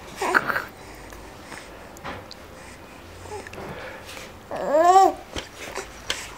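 Young baby cooing: a short coo just after the start, then a louder, longer coo about five seconds in that rises and falls in pitch.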